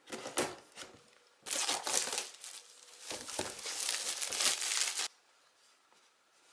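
Packaging being handled and unwrapped, crinkling and rustling in three bursts; the last and longest stops suddenly about five seconds in.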